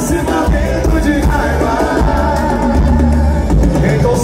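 Live forró band playing loudly through the PA with drums and a singer, heard from the crowd.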